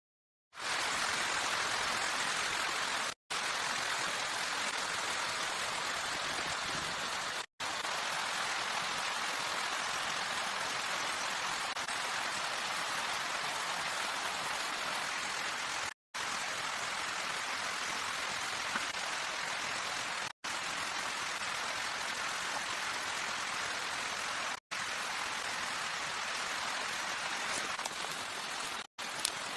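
Steady rain, an even hiss, broken every few seconds by brief dropouts to silence where clips are joined.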